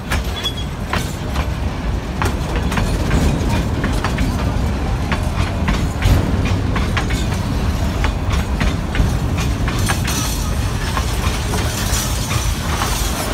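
Train carriages rolling past at close range: a steady low rumble with irregular clicks and clanks of the wheels on the track.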